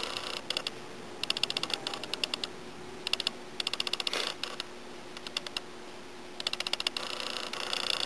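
Tapered tap turned by hand in a tap wrench, cutting threads into a pilot hole between a cylinder's aluminum casting and its sleeve: short bursts of rapid clicking and creaking with each turn, with a longer run near the end.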